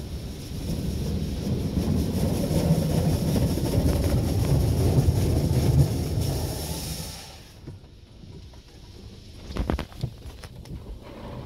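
Petit Accutrac 360i touchless car wash's high-pressure water jets drumming on the car's body and glass, heard from inside the cabin. The spray stops about seven and a half seconds in, leaving a quieter rumble with a few sharp knocks near the end.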